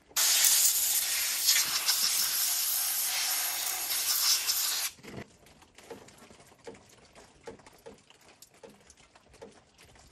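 A spray hissing steadily and loudly for about five seconds while oil is cleaned off an outboard motor, then cutting off suddenly. After that only faint, scattered clicks and light knocks.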